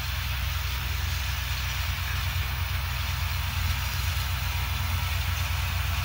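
Farm tractor pulling a round baler through hay, heard from a distance: a steady low engine drone under an even hiss.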